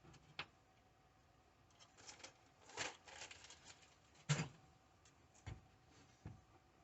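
Small tools and parts from a cell-phone repair toolkit being handled: scattered light clicks and rattles, with a sharper knock about four seconds in.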